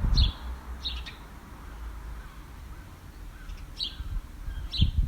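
Wild bird giving short high chirps, four of them in two pairs, about a second apart within each pair, over a low rumble.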